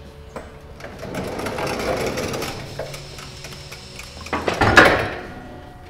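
Forklift forks lowering a stripped riding-mower frame: a hydraulic rush swells about a second in and fades, then a louder burst of noise comes about four and a half seconds in as the load comes down.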